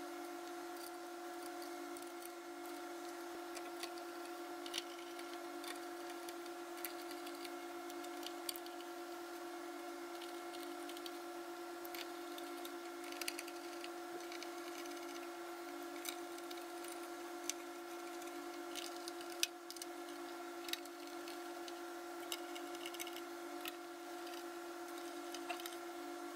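Small scattered metal clicks and taps of machine screws being set into the holes of a 3D printer's bed plate and turned with a hand screwdriver, with one sharper click about two thirds of the way through. A steady hum runs underneath.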